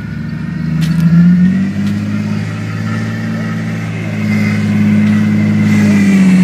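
Jeep engine running under load as the Jeep crawls over rocks, revving up about a second in and again from about four seconds in.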